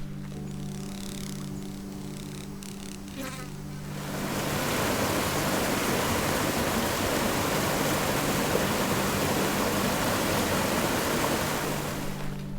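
Background music with steady low notes. About four seconds in, a louder, even rushing hiss comes in over it, holds for about eight seconds, then fades out.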